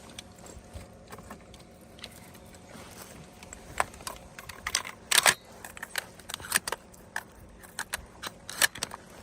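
Scattered clicks, knocks and light rattles of gear being handled, more frequent and louder from about four seconds in.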